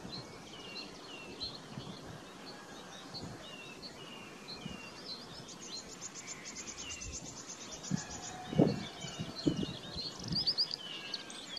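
Small birds calling over and over with short, high, down-slurred chirps, with a fast trill about halfway through. Later come a few low thuds.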